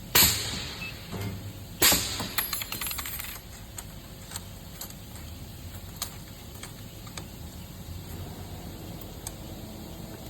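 Two sharp metallic bangs about two seconds apart, each ringing off briefly, typical of a projection welding machine firing a weld; after the second comes a rattle of small clicks, then scattered ticks.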